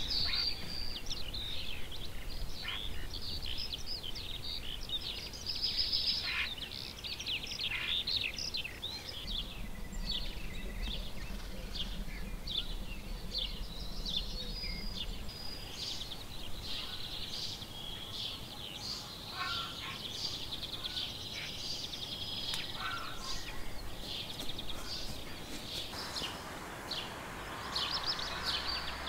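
Small birds chirping and twittering in many short, quick calls, over a low outdoor rumble that swells for a few seconds partway through.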